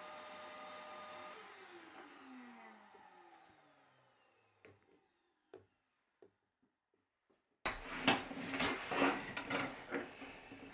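Benchtop drill press motor running steadily, then switched off about a second in and spinning down, its whine falling in pitch and fading over a few seconds, followed by a few light clicks. About three-quarters of the way through, louder irregular knocking, clatter and rubbing begins as a plastic circle template is handled on a wooden workbench.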